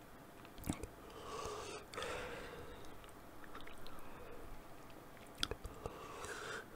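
Quiet mouth sounds close to a microphone: breaths blown out through an open mouth and a few small wet clicks of lips and tongue, from a mouth burning from extremely hot sauce.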